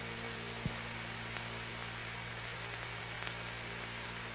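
Steady hiss and mains hum of an old film soundtrack, with one faint click just under a second in.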